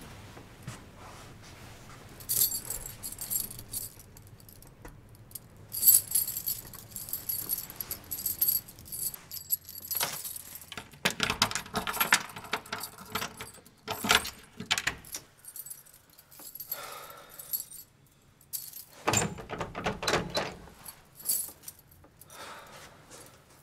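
A large ring of metal keys jangling in several bursts, with clicks and scrapes as keys are tried in a door lock.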